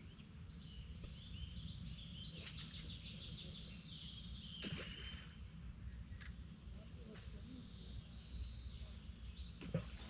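Small birds singing in runs of short, repeated high chirps over a steady low outdoor rumble, with a few sharp clicks, the loudest near the end.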